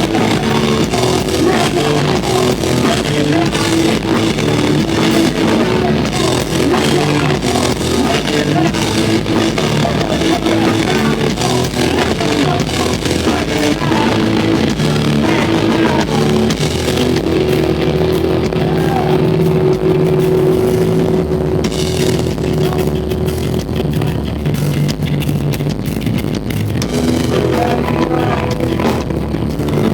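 Live rock band playing loud through a venue's PA: distorted electric guitars, bass and a pounding drum kit, with some sung vocals.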